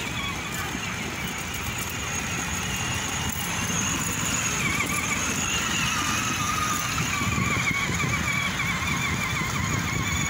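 Children's electric ride-on toy car driving over paving tiles: a steady, slightly wavering whine over a rolling rumble, a little louder after about four seconds.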